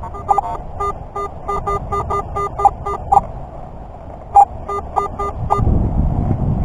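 Garrett AT-series metal detector sounding a rapid string of short beeps, about four a second, mostly on one low tone with a few higher-pitched ones mixed in, as the coil is swept over the grass. The beeping breaks off for about a second in the middle, then resumes, and wind rumble on the microphone rises near the end.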